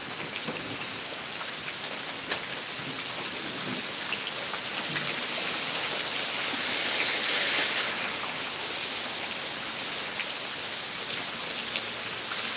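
Steady rain falling, an even hiss with scattered close drops ticking, swelling a little midway.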